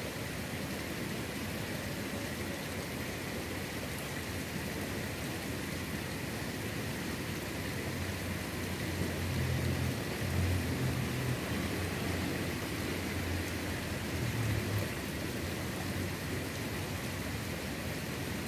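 Steady rush of water flowing in a shallow, muddy ditch, with a few low rumbles in the middle.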